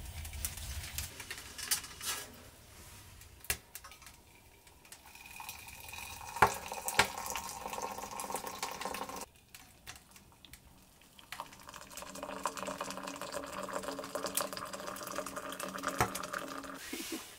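Water being poured into a cup in two long pours, the second starting about halfway through, with scattered light clicks between and during them.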